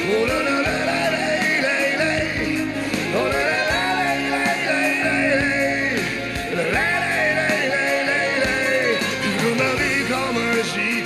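Upbeat live song: a man singing over a band accompaniment with a steady beat.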